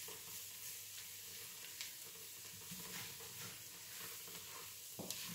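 Chopped onions and mushrooms coated in flour frying faintly in lard drippings in a frying pan, sizzling while a wooden spoon stirs them, with a few light scrapes. This is the flour frying briefly before the liquid goes in.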